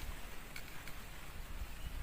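Faint steady background hiss with a low rumble, in a pause between a spotted dove's coos; no call in this stretch.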